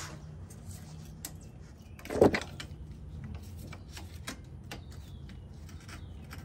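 Small scattered clicks and scrapes of a screwdriver working at the lower end of a rear shock absorber, freeing whatever is attached to it, with one loud knock about two seconds in.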